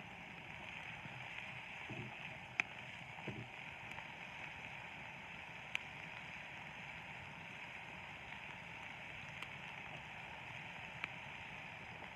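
Wood campfire burning under a hanging cast iron pot: a steady hiss with three sharp crackling pops spread through it, and two soft low knocks about two and three seconds in.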